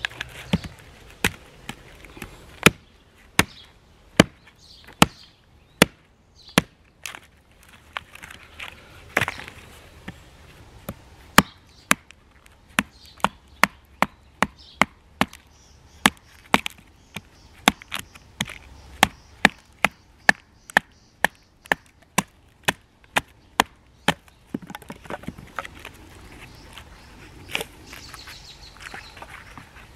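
Small hatchet splitting short lengths of firewood into kindling on a log: a long run of sharp wooden chops, about one a second at first and quickening to about two a second. Near the end they give way to lighter scattered taps and one last strike.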